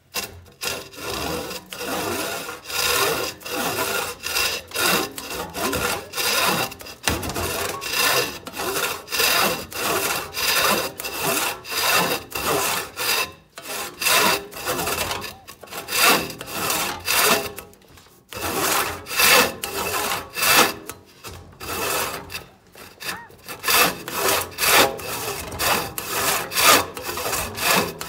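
Handsaw cutting through a round wooden handle held in a vise: steady back-and-forth rasping strokes, about three every two seconds, with a few brief pauses between runs of strokes.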